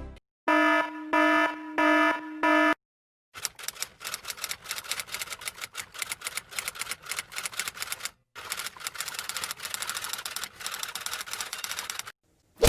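A buzzing electronic beep pulsed four times, then long runs of rapid clattering typing keystrokes, like a typewriter, broken by a short pause. A sharp hit at the very end.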